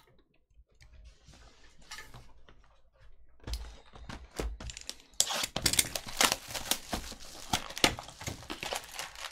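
Plastic shrink wrap crinkling and tearing as it is stripped off a Panini Prizm trading card box, with sharp cardboard clicks as the box is opened. Faint handling rustle at first, then steady crackling from about three and a half seconds in, louder in the second half.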